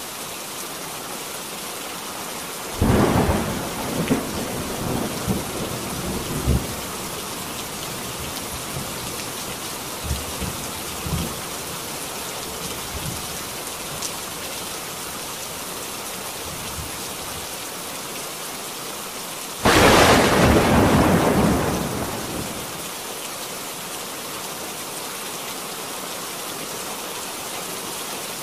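Thunderstorm sound effect added to the footage: steady rain with rolling thunder. A sudden clap about three seconds in rumbles on with scattered cracks for a few seconds, and a second, louder clap about twenty seconds in rolls off over two to three seconds.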